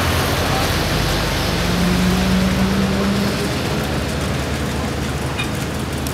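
Motor vehicle engine running close by under a steady rush of road noise, with a low steady hum standing out for about two seconds.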